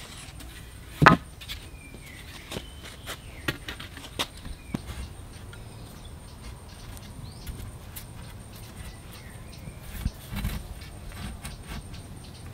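Wooden poles being handled and knocked together during shelter building: one sharp knock about a second in, scattered lighter clicks, and a few dull thuds near the end.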